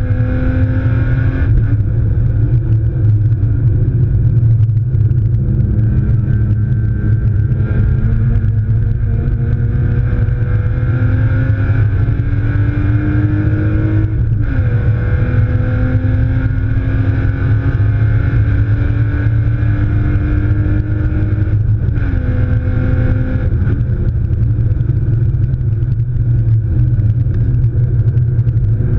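BMW E36 328i straight-six engine pulling hard at racing speed, heard from inside the cabin: the revs climb slowly through long pulls and dip briefly three times as gears change, over a heavy low road and drivetrain drone.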